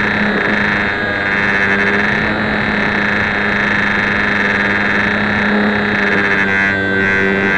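Small electric motor and propeller of a HobbyZone Champ RC plane running steadily, heard close up from the plane's onboard camera, with a constant hum and the rush of wind over the airframe.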